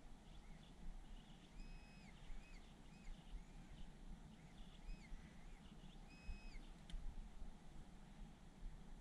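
XP Deus metal detector giving faint signal tones: several short, high beeps between about a second and a half and seven seconds in, some held briefly and some only blips rising and falling in pitch, over a low rumble of handling and ground noise.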